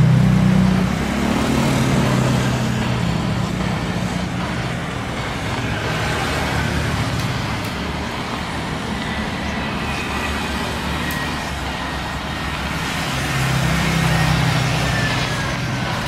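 Road traffic: cars and motorbikes passing steadily on a road, their engine hum strongest near the start and again near the end.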